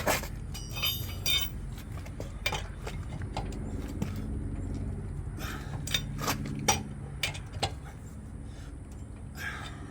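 Irregular metallic clicks and clinks of a lug wrench on a car wheel's lug nuts as they are tightened down hard, over a steady low hum.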